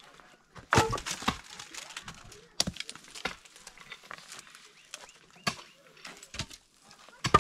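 A series of irregular sharp knocks and clatters, about a dozen strikes spread unevenly, the loudest a quick cluster about a second in.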